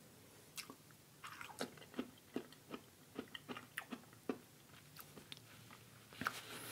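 A person chewing a mouthful of raw aloe vera, a quick run of soft mouth clicks and smacks that thins out after about four seconds, with a louder cluster near the end.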